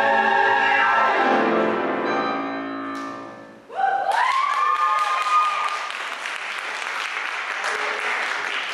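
Mixed vocal ensemble holding the final chord of a musical-theatre number, which fades away about three and a half seconds in. After a short gap, the audience applauds, with rising whoops and cheers.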